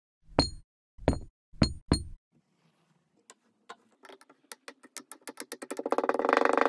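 Four sharp knocks, each with a brief high ring, in the first two seconds. Then single clicks start, come faster and faster, and thicken into a dense buzzing rush near the end.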